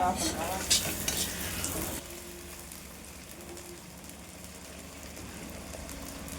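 Food frying in a hot pan. It sizzles, with clinks and scrapes of stirring in the first two seconds, then settles into a steadier, quieter sizzle.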